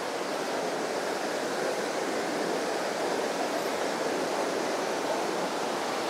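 Highland burn rushing over small rocky cascades: a steady, even rush of water.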